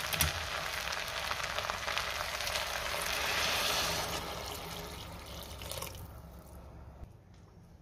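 Hot water being poured into a pressure cooker pot over sautéed rice and masoor lentils: a steady pouring rush that grows louder toward the middle and fades out about six seconds in.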